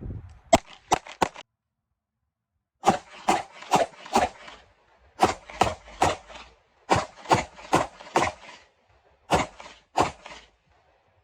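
Rapid 9mm pistol fire from a Glock 45 with an aftermarket slide: three shots, a short silence, then strings of shots a few tenths of a second apart and a last pair. The pistol is cycling reliably, with no misfires from light primer strikes.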